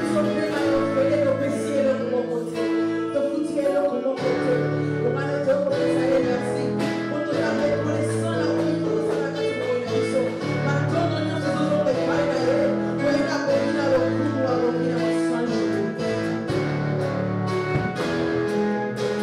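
Congolese gospel praise music: a plucked, guitar-led band with singing and a steady beat.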